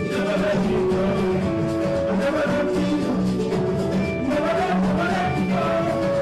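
A man singing held notes into a microphone over instrumental accompaniment, with percussion keeping a steady beat.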